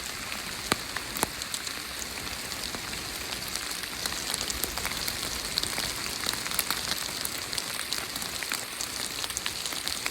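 Steady rain falling, with many scattered drops tapping sharply close by.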